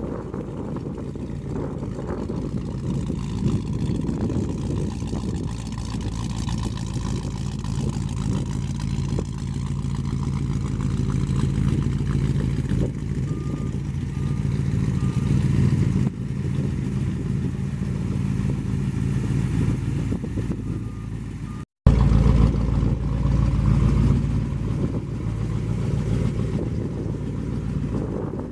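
1956 Ford F-100's 272 V8 idling steadily, with a brief break in the sound about three-quarters of the way through.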